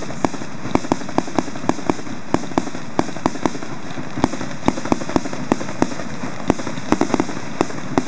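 Fireworks going off in a fast, fairly even run of sharp pops, about four a second, over a steady hiss.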